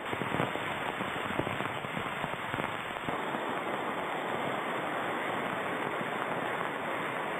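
Floodwater rushing through a street in torrential rain: a steady, loud wash of water noise, with many sharp crackling hits over the first few seconds.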